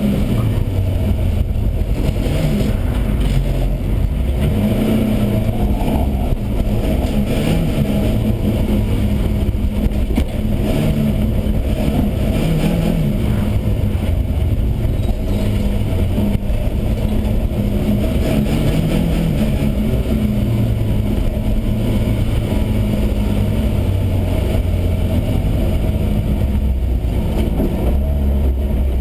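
BMW E30 318is race car's four-cylinder engine running hard as the car is driven, its pitch rising and falling with the throttle and gear changes, heard from inside the stripped, roll-caged cabin along with tyre and road noise.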